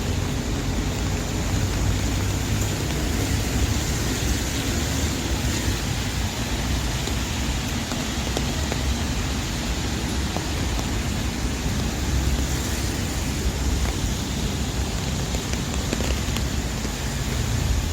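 Steady rain on a busy city street, with a continuous low rumble of traffic mixed in.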